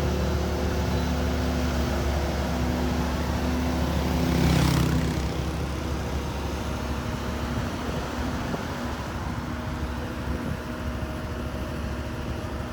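A vehicle engine running steadily with a low hum while driving. About four and a half seconds in there is a louder rushing swell, after which the sound eases off a little.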